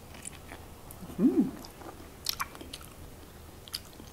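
Close-up chewing and mouth sounds of someone eating boiled pork, with a few sharp smacks and clicks. A short hummed "mm" of enjoyment comes about a second in.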